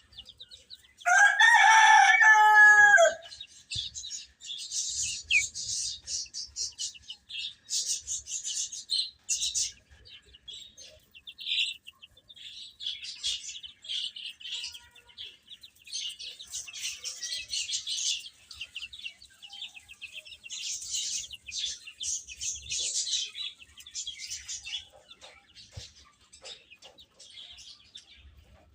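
Baby chicks peeping in short, high chirps, coming in bunches throughout. About a second in, an adult chicken gives one loud, drawn-out call lasting about two seconds, the loudest sound here.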